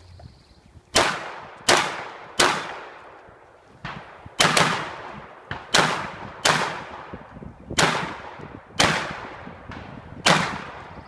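Shotgun firing about ten shots at uneven intervals, some in quick pairs less than a second apart and others with longer gaps, each shot trailing off in an echo. Fainter knocks fall between some of the shots.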